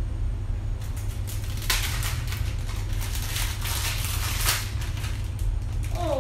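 Clear plastic packaging bag crinkling as it is torn open and handled, a dense crackle lasting about three seconds from a couple of seconds in, over a steady low hum.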